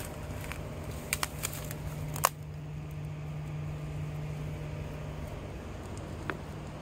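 Handling noises from a freshly caught tilapia being unhooked: a few short sharp clicks and taps, the loudest about two seconds in and one more near the end, over a steady low hum.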